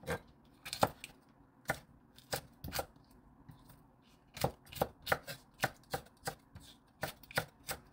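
Chef's knife slicing green chili peppers on a wooden cutting board: sharp knocks of the blade meeting the board. A few spaced cuts come first, then a pause, then a steady run of about three cuts a second.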